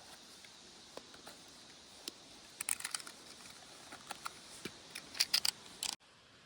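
Irregular crackling and snapping of dry twigs and leaf litter on a forest floor, coming in clusters and cutting off abruptly near the end.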